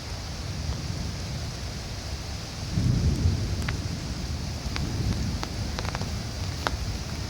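Heavy rain with strong wind: a steady hiss of rain with scattered sharp ticks of drops striking nearby surfaces, and a low rumble that swells about three seconds in.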